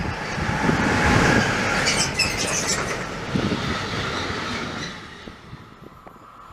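DB class 185 electric locomotive and a string of loaded open hopper wagons passing close by, with wheels clattering over the rails and brief high wheel squeals about two seconds in. The noise dies away near the end.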